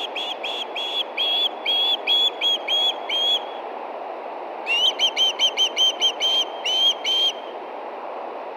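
Osprey calling: runs of short, high whistled chirps at about four a second, pausing for about a second midway and stopping shortly before the end. A steady rushing noise lies under the calls.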